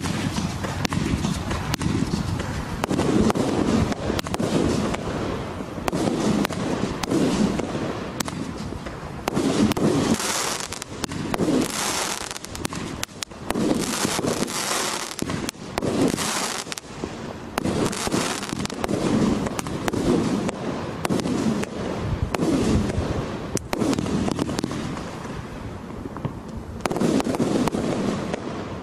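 A 36-shot fan fireworks cake firing shot after shot, with a low thud about once a second as shells launch and burst. Stretches of dense crackling come from the crackling palms.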